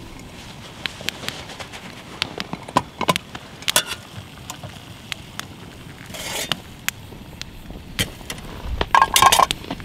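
Metal mess-kit pots and lid clinking and scraping as they are handled on an alcohol stove's stand and the pot is lifted off by its wire bail handle, with a louder knock near the end.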